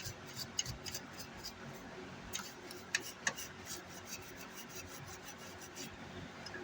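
Light, irregular clicks and ticks, several a second, a few louder ones around the middle: metal test probes tapping and scraping on resistor leads on an amplifier circuit board while the gate resistors are measured.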